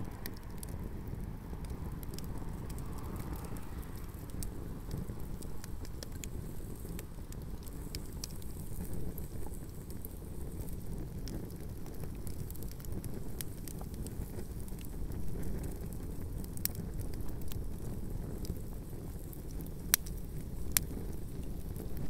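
Campfire burning shoes on a shoe rack: a steady low rush with scattered crackles and pops throughout, and two sharper pops near the end.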